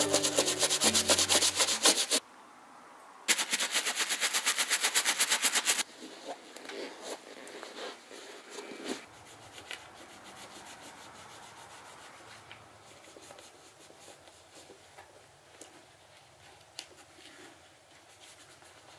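Bristle brush scrubbing a lathered motorcycle boot in fast, even back-and-forth strokes, in two spells with a short pause about two seconds in. After that, fainter intermittent rubbing as a cloth is worked over the boot leather.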